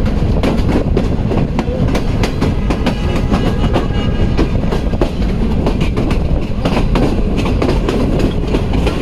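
Express passenger coach running at speed, heard at an open coach door: a steady rumble with a rapid, irregular clatter of the wheels over the rail joints.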